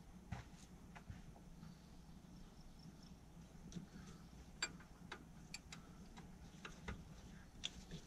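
Faint, irregular clicks and taps of a hand working among the spark plug wires and plastic parts at the back of a Ford 4.6 V8 engine that is switched off.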